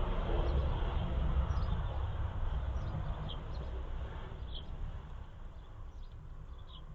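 A low rumble that fades away over several seconds, with a few short, faint high chirps scattered through it.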